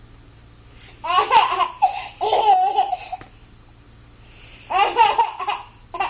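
Baby laughing in three bouts: a long stretch about a second in, a shorter one near five seconds, and another starting right at the end.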